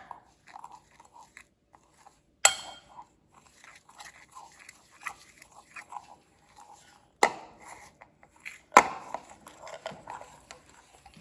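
Stirring a thick, lumpy spice mix of corn flour, rice powder, ginger-garlic paste, soy sauce and chili in a bowl, not yet thinned with water: soft, irregular crunching and squishing, with four sharp knocks along the way.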